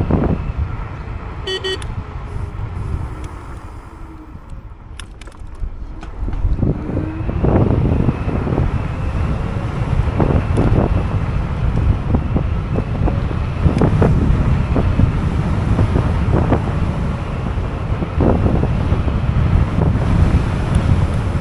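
Wind buffeting the microphone and road rumble from a Teverun Fighter 11 electric scooter under way. It drops quieter for a few seconds as the scooter slows, then rises again as it picks up speed. A short beep sounds about a second and a half in.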